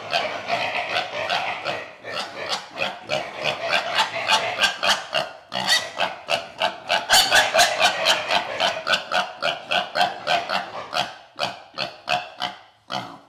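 A piglet squealing in rapid, repeated shrieks, several a second, in distress at being held up by its hind legs and injected; the squealing stops abruptly near the end.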